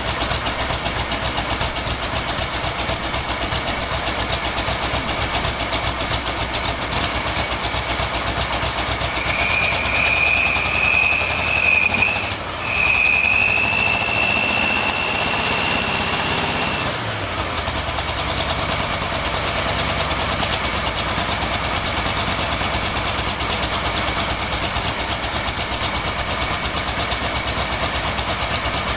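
A 1979 Ford F250's carbureted 351M V8 idling steadily while its carburetor is being tuned; the owner reports it running rich, with black smoke from the driver's side exhaust. From about ten seconds in the engine speeds up with a high whine that rises slightly, then settles back to idle about seven seconds later.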